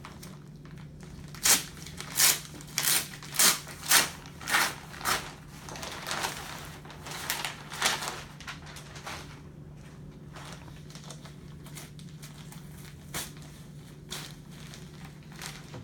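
A sterile delivery pack's packaging being opened and unfolded: a run of sharp crinkling crackles, about two a second, then softer scattered rustling, over a steady low hum.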